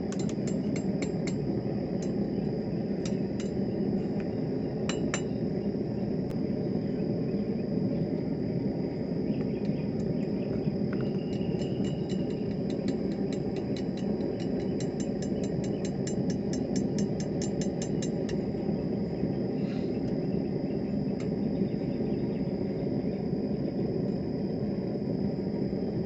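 Hammer striking hot mild steel rod on an anvil in quick, even runs of about four blows a second, once just at the start and again in a longer run from about 11 to 18 seconds in, with a few single blows between. Under it a propane forge's burner roars steadily.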